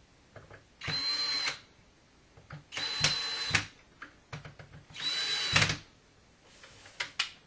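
Cordless drill-driver turning shutter hinge screws in three short runs of under a second each, each with a steady high motor whine. The screws are being worked so a shim can fit under the hinge plate.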